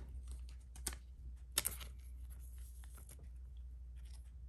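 Handling noise of trading cards and foil booster packs: scattered soft clicks and rustles as a card is set down and the next pack picked up, the loudest about a second and a half in, over a steady low hum.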